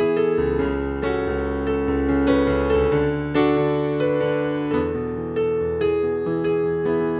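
Background music: keyboard notes struck one after another in a melody over sustained low notes.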